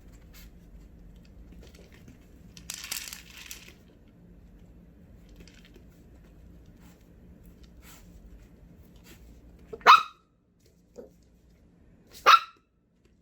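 A Maltipoo puppy barks twice, short sharp barks a couple of seconds apart near the end. A brief rustle comes a few seconds in.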